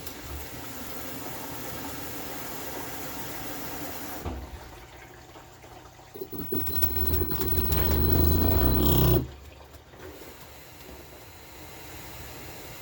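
LG WM2050CW front-load washer attempting its spin cycle: after a steady rush of water, the drum motor speeds up with a rising whine and grinding for about three seconds, then cuts off suddenly. The grinding and failed spin are the sign of a malfunctioning rotor position (hall) sensor.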